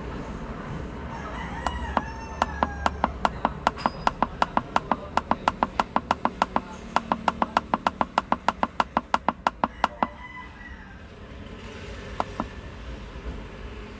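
A rooster crowing in the background, over a run of sharp, evenly spaced clicks, about five a second, that break off briefly midway and stop about ten seconds in.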